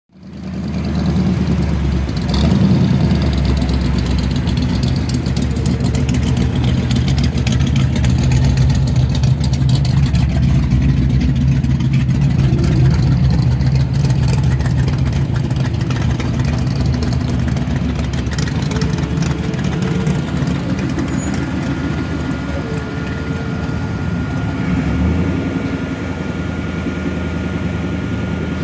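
Car engine idling close by, a deep, steady running sound that holds for the whole stretch.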